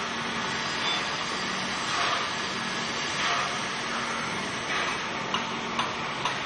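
Electric arc welding: the arc's steady hiss, with a few sharp pops near the end.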